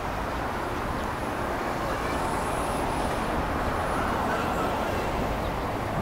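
Steady street traffic noise from cars passing on a city road.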